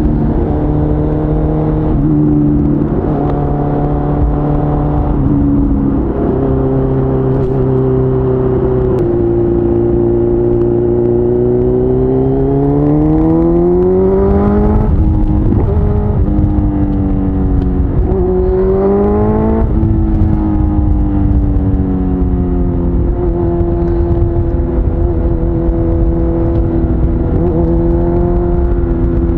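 Suzuki GSX-R1000's inline-four engine heard from the rider's seat, mostly holding a steady note. The pitch rises as the bike accelerates, about a third of the way in and again just past halfway. Low wind rush runs under it.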